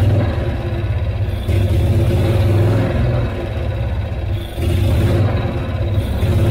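Small gasoline engine of a 1984 Cushman three-wheeler running, newly brought back to life after 36 years parked. It is revved and eased by hand at the carburetor throttle linkage, so its sound swells and drops every second or so.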